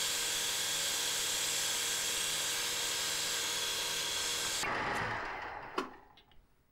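Metal lathe running with a steady motor and gear whine while turning an aluminium bar. About four and a half seconds in it is switched off and runs down, with a single click near the end.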